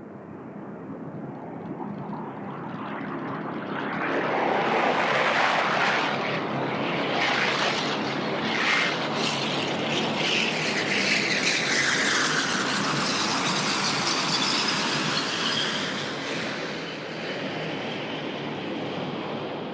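Large jet aircraft passing low overhead, its engine noise swelling about four seconds in, with a jet whine that glides down in pitch as it goes by.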